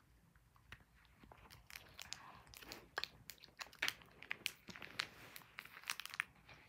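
Candy being chewed and crunched close to the microphone: a string of sharp, wet clicks and crunches, sparse at first and coming thicker from about two seconds in.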